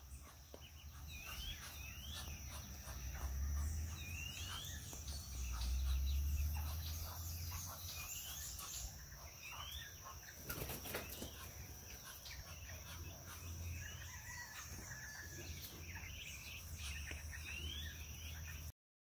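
Ducklings peeping: short rising peeps every second or two, over a steady high insect drone and a low outdoor rumble, with a brief knock about halfway through. The sound cuts off abruptly near the end.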